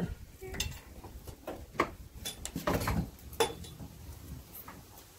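Scattered clinks and knocks of stored items being handled and moved about inside a small wooden shed.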